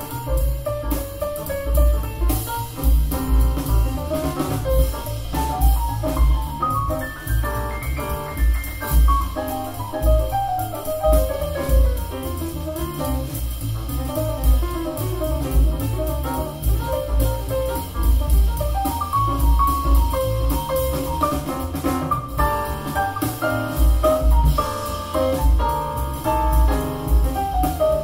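Instrumental jazz with drums and bass keeping a steady beat under a melody, played back through a pair of PMC Prodigy 1 bookshelf speakers and picked up by microphones in the room.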